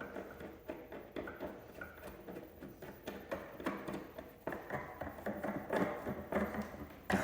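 A workstation leg being handled, set into its hole and screwed down with a Phillips screwdriver: irregular clicks, taps and scraping, with one sharp knock near the end.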